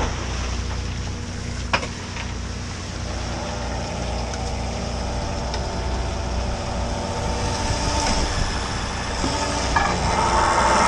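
Crab boat's engine and deck machinery running steadily, with a single sharp knock about two seconds in and the sound growing louder near the end.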